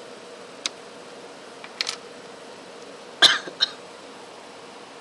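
Sharp clicks and snaps of a mobile phone's plastic housing and frame being handled and pried apart: a single click, a quick double click, then the loudest pair of snaps a little past the middle, over a steady hiss.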